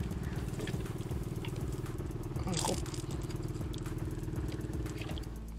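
A small single-cylinder boat engine running steadily at idle with a fast, even putter. A brief louder noise comes about halfway through.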